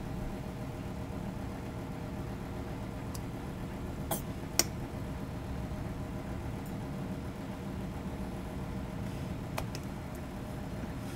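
Steady low hum of running machinery with a few sharp light clicks, two close together about four seconds in and one more near the end.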